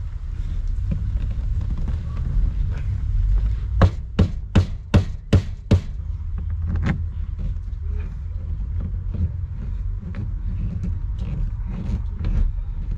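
Rear interior side panel of a 1972 VW Beetle being knocked into place by hand against the body: a quick run of six sharp knocks, about two and a half a second, then one more a second later. A steady low rumble lies under them.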